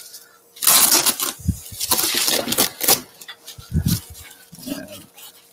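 Velcro hook-and-loop fastening ripping apart as a white fabric panel is peeled off a softbox, in several crackly pulls, followed by softer fabric rustling and a couple of dull handling bumps.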